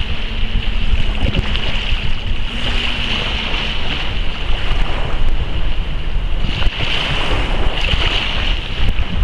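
Small waves washing and splashing against a rock jetty, swelling louder about three seconds in and again about seven seconds in, over a steady rumble of wind on the microphone.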